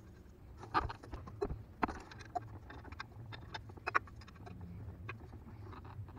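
Scattered sharp metallic clicks and knocks as the oil drain plug is put back into the engine and tools are handled, over a low steady hum.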